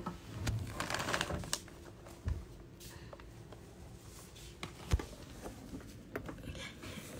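Rustling and scratching in shredded paper and wood-shaving bedding, with scattered light clicks and one sharp knock about five seconds in.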